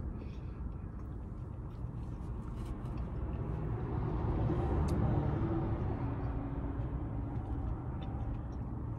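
Low traffic rumble heard from inside a parked car, swelling as a vehicle passes about four to six seconds in and then easing off, with faint chewing sounds over it.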